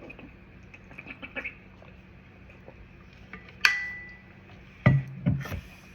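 Weekly pill organizer being handled and refilled: scattered light plastic clicks, a sharp snap with a brief ring about halfway through, then a few louder knocks and a short low sound near the end.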